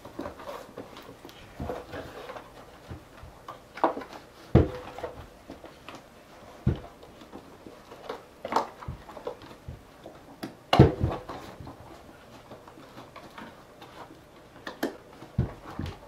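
Hands working a mountain bike tire's bead onto an aluminium rim: scattered rubbing, clicks and knocks as the rubber tire and the wheel are handled. The sharpest knock comes about two-thirds of the way through.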